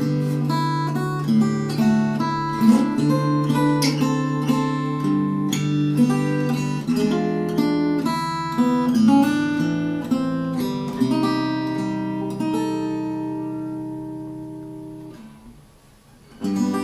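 K.Yairi MYT-1 small-bodied acoustic guitar, solid cedar top with mahogany back and sides, fingerpicked: a quick melody over bass notes, then a chord left to ring and fade out about three-quarters of the way through. Playing starts again just before the end.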